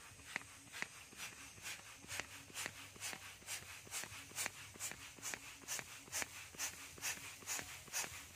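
Handheld balloon pump inflating a yellow latex balloon in quick, even strokes: a short hiss of air about twice a second.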